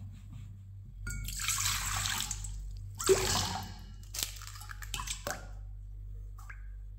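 Water poured into a stainless-steel mixing bowl for about two seconds. An egg is then cracked and dropped in: a loud sharp crack, then a few short taps against the metal.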